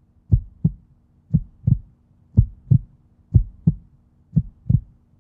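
Heartbeat sound effect: paired low thumps, lub-dub, about one pair a second, five pairs in all, over a faint steady low hum.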